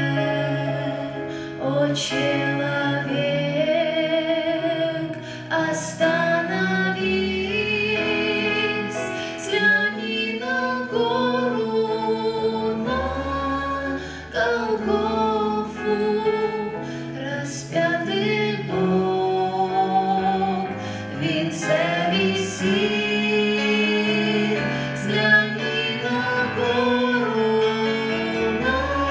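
A song: sung voices holding wavering notes over instrumental accompaniment, with a few sharp percussive hits.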